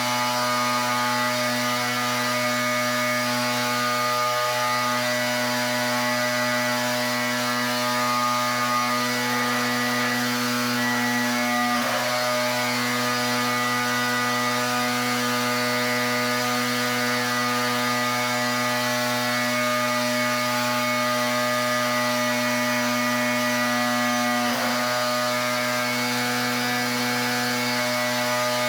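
Pressure washer running steadily with the hiss of its water jet spraying, faltering briefly twice.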